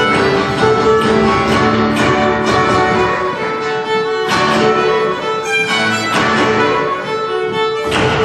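Irish polka played live on two fiddles carrying the melody over strummed acoustic guitar, at a steady brisk rhythm.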